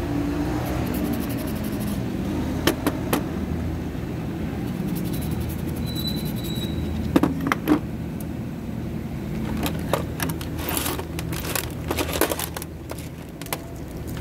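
Steady low hum with scattered clicks and bursts of scraping from small parts being handled on a workbench, densest about ten to twelve seconds in.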